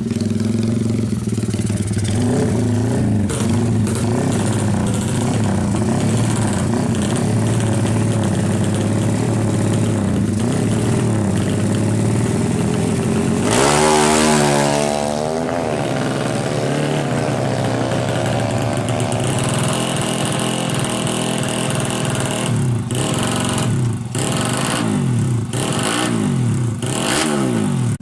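Honda Tiger drag bike's bored-up 300cc single-cylinder engine running and being revved. A hard rev comes about 14 seconds in, its pitch falling over the next two seconds, and several short throttle blips follow near the end.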